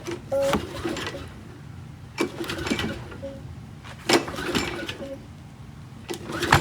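Small lawn mower engine being pull-started, four yanks on the recoil starter about two seconds apart, each cranking it briefly without it settling into a steady run; this is the first try after a carburettor clean-out.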